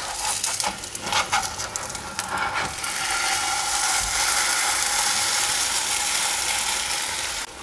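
A spatula scraping and clicking against a nonstick frying pan as a cottage-cheese patty is turned over. Then a steady sizzle as the patty fries in sunflower oil, which stops abruptly near the end.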